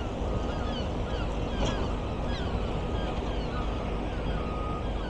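Steady low rumble of demolition machinery, a rock crusher and excavators working, with many short falling gull cries over it and a vehicle's reversing alarm beeping a few times.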